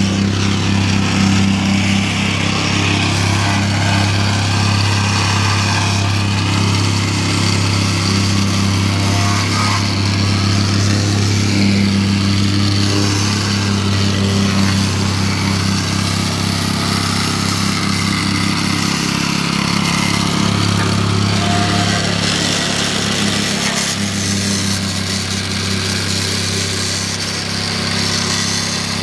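Petrol-engine vibratory plate compactor running steadily as it tamps loose soil and gravel, with a constant low drone from the engine and the shaking plate.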